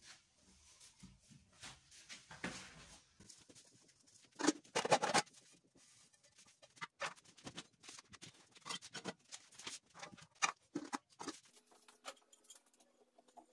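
Kitchen cookware being handled and wiped: scattered knocks and clinks, with a louder clatter about four and a half seconds in.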